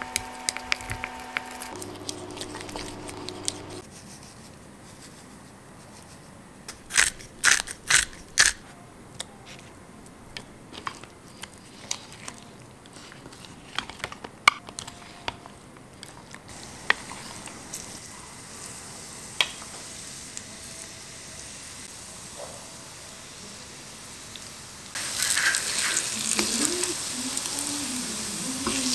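A wooden spoon stirs and knocks against a glass bowl of tempura batter, with scattered clicks and a cluster of sharp knocks. About 25 s in, batter-coated lotus-root slices go into hot oil in a tamagoyaki pan and a loud, steady frying sizzle begins.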